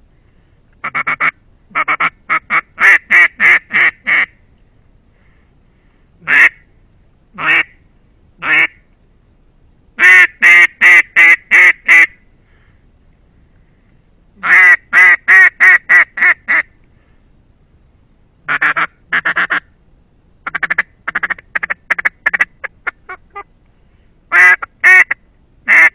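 Russian Custom Calls single-reed acrylic duck call blown in quacking sequences: several runs of loud, evenly spaced quacks, a few single quacks, and a quicker run of shorter quacks that grows fainter.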